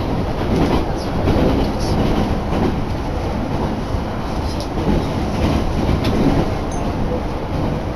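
Inside the carriage of a moving JR Hakodate Line local train: the steady rumble of the wheels on the rails, with a few faint clicks.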